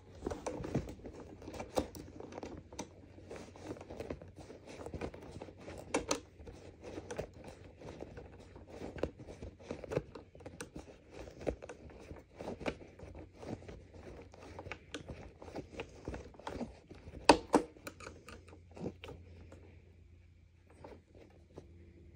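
Hand screwdriver turning a screw into the plastic housing of a Sanitaire upright vacuum, a busy run of small clicks and scrapes with a sharper knock about seventeen seconds in. It thins out over the last couple of seconds.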